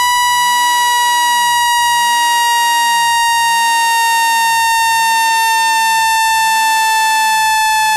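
Synthetic speaker water-eject tone: a loud, buzzy electronic tone with overtones, sliding slowly lower in pitch, meant to vibrate trapped water out of an iPhone speaker.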